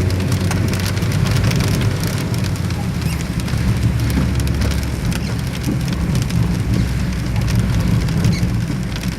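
Rain falling, a dense patter of drops striking a surface, over a steady low rumble.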